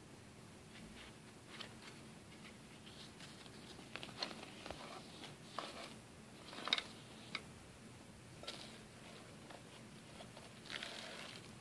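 Faint handling sounds: scattered light clicks and taps, the sharpest a little past halfway, and a brief rustle near the end, as hands move a stand mixer's cord and base and its white mixing bowls.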